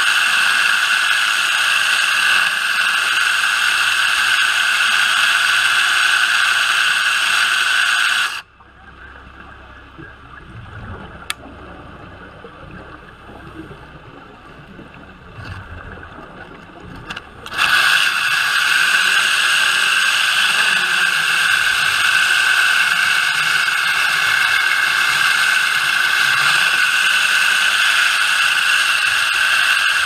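Hydraulic Dragon Saw running steadily underwater while cutting a concrete pipe, a loud even noise with a strong high whine. About eight seconds in it cuts out abruptly, leaving a low rumble and a single click, then starts again abruptly about nine seconds later.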